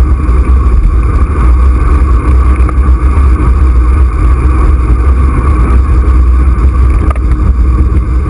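Loud, steady wind rumble on the microphone of a handlebar camera on a bicycle moving at speed.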